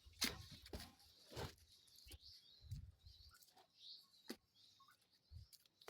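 Quiet farm ambience: a few soft, irregular knocks and rustles, with faint bird chirps in the background.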